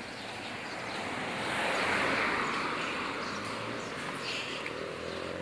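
A road vehicle passing close by, its noise swelling to a peak about two seconds in and then fading. Near the end another engine is heard rising in pitch.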